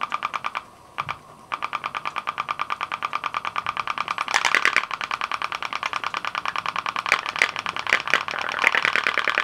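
Homemade pop-pop (putt-putt) steam engine running on candle heat, with its straws dipped in water: a rapid, even popping as water inside the metal boiler flashes to steam and pulses out through the straws. It pops briefly, stops, then starts up and runs steadily from about a second and a half in.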